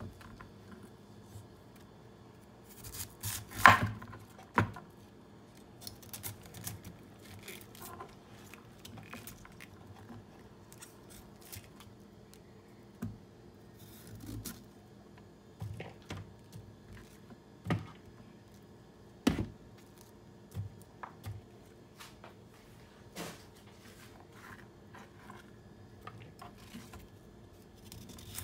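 Chef's knife cutting a raw cauliflower into florets on a wooden cutting board: scattered crisp snaps of the stems and knocks of the blade on the board, the loudest a few seconds in.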